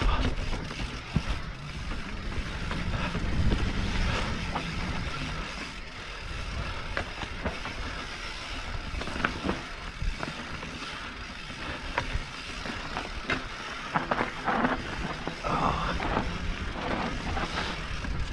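Mountain bike riding down a rough dirt singletrack: tyres rolling over dirt and roots and the bike rattling, with irregular knocks and clatters over bumps.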